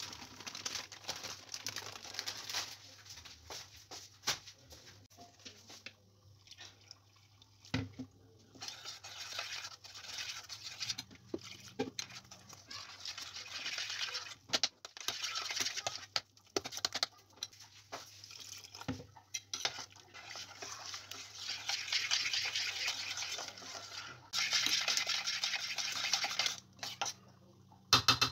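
A spoon stirring batter in a stainless steel pot, scraping and clinking against the metal in stretches of a few seconds at a time. At the start, dry powder pours from a bag into the pot. A faint steady hum runs underneath.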